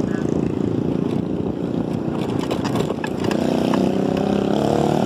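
Vehicle noise while riding along a road: a rough, loud rumble, with a steadier motor tone coming in about three seconds in.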